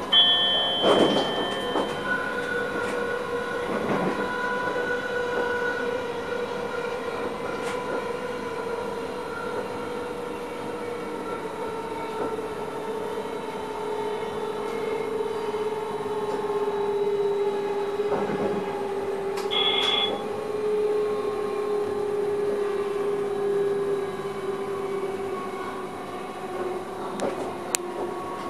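NS electric train running, heard from inside the driver's cab: a steady motor whine that slowly falls in pitch over rail and running noise. Short high tones sound about a second in and again around twenty seconds in, and a few clicks come near the end.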